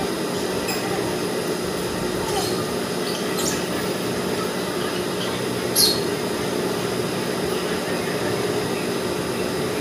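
Sewing machine running steadily as fabric is stitched, with a few light clicks and a sharper click about six seconds in.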